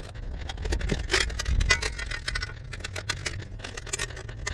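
A low folding camp table being unfolded and put together: a quick run of small clicks, rattles and scrapes, with wind rumbling on the microphone.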